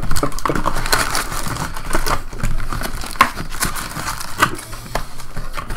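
Shiny foil baseball card packs crinkling and rustling as they are gathered and handled, with many small sharp crackles.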